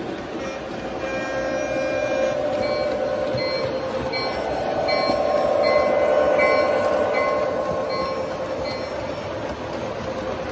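O scale model train running past: the diesel switcher's electric motor humming and its wheels rolling on three-rail track. The sound grows louder as the locomotive comes closest a little past halfway, then eases as the boxcars roll by.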